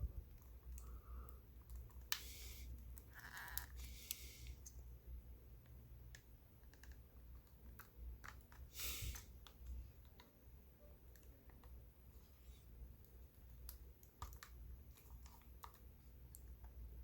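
Faint scattered clicks and short scrapes of plastic parts being handled and pried at while a Clover Flex card terminal is taken apart by hand.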